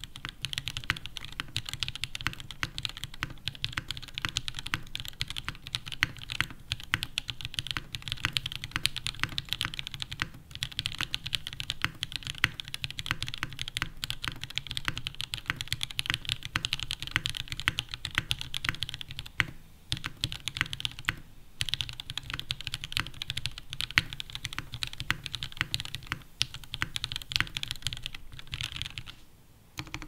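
Continuous fast typing on a custom tenkeyless mechanical keyboard: lubed SP-Star Polaris White linear switches on a polycarbonate plate, burger top mount with no foam, GMK Ursa doubleshot ABS keycaps, giving a quick stream of key clacks. The typing breaks off briefly twice in the second half and pauses just before the end.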